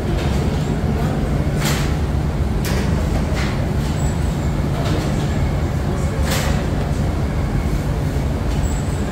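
Steady low mechanical rumble, with a few sharp clicks or clatters over it.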